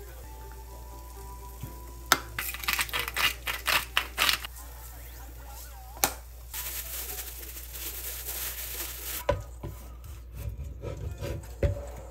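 Sesame seeds shaken from a shaker onto a block of cooked rice: a quick run of rattling shakes about two seconds in, then a click and a steady hiss for a few seconds. Near the end come light knocks and taps of utensils on a cutting board.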